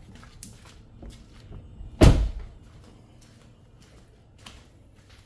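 A single loud thunk about two seconds in, fading quickly, with a few faint clicks and knocks before and after.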